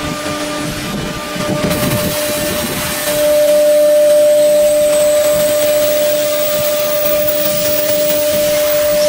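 Blue Elephant 1928 nesting CNC router running: a steady whine over a continuous rushing noise, growing louder about three seconds in as the gantry travels over the board.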